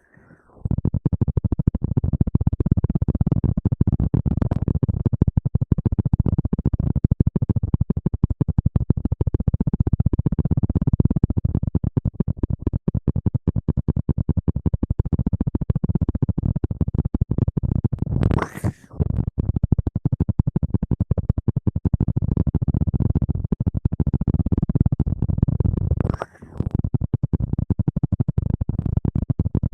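Dense, close-miked scratching and rubbing right on the microphone, as in ASMR hair-washing and rustling sounds. It cuts out briefly twice, after about 18 and 26 seconds.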